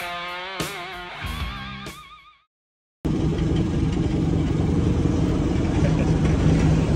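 Guitar music with wavering held notes fades out over the first two seconds. After a short silence, a fishing boat's engine runs steadily with a low hum under a noisy wash.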